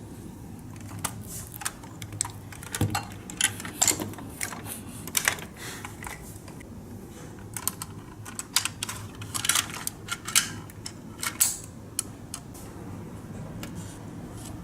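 Irregular light clicks and taps of small hard parts being handled and worked, over a faint low steady hum.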